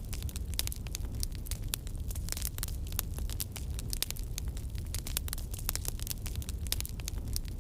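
Crackling wood fire, dense irregular pops and snaps over a steady low rumble.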